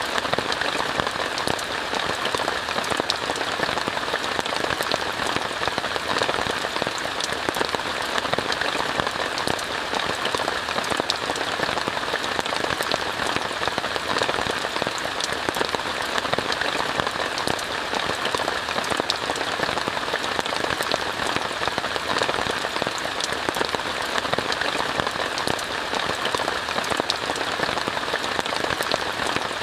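Steady rain falling on a tent, heard from inside, with many individual drops striking it.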